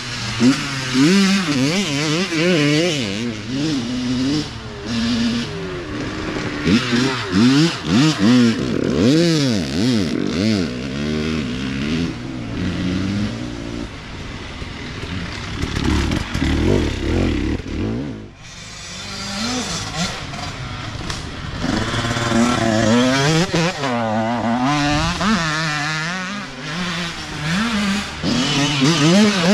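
Youth dirt bike engines revving up and down as riders pass one after another, the pitch rising and falling with throttle and gear changes. There is a brief lull about two-thirds of the way through before the next bike's engine builds again.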